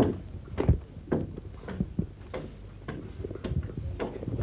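Hand tools chopping and hacking at hardwood logs, with repeated irregular knocks about two or three a second.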